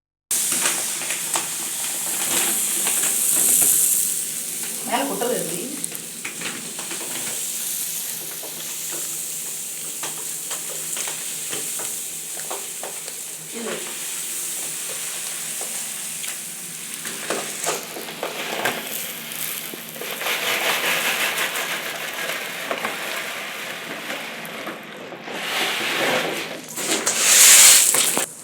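Raw, uncooked rice grains crunching and crackling in a dense run of small clicks, swelling louder a few seconds in and again near the end.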